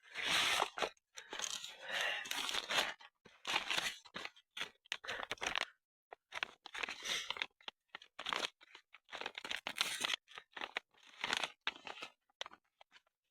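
Irregular crunching and rustling steps, about one or two a second, through dry leaves and twigs on a forest floor.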